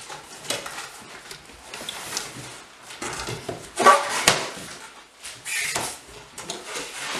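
A cardboard shipping box being opened by hand: packing tape pulled off and the flaps and cardboard scraping and rustling in a series of short noisy strokes. A louder short sound with some pitch to it, ending in a sharp click, comes about four seconds in.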